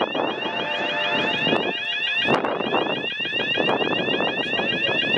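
Level crossing bells ringing rapidly as steam locomotive A2 986, a Victorian Railways A2-class 4-6-0, passes at speed with its exhaust beating fast. A held whistle-like tone sounds for about a second shortly after the start.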